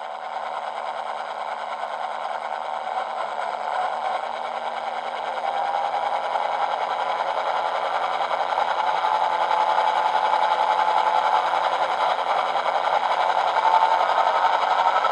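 Digital sound decoder's recorded EMD SD70ACU diesel engine sound, played through a small model-locomotive speaker. The engine runs and grows gradually louder, with a faint whine that rises in pitch near the end.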